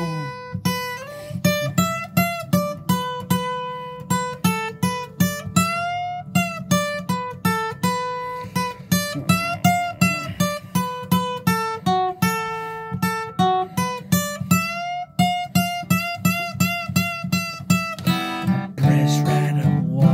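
Solo acoustic guitar playing an instrumental break: a picked single-note melody, about two notes a second, over a steady low bass, turning to strummed chords near the end.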